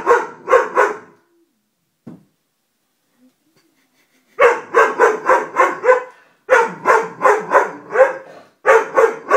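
Doberman barking: three quick barks at the start, then after a pause of about three seconds, rapid runs of short barks, roughly four a second, with brief breaks between runs.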